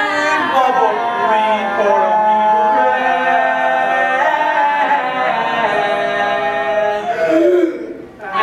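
Several teenage voices singing together in harmony, mostly on long held notes, dropping off briefly near the end.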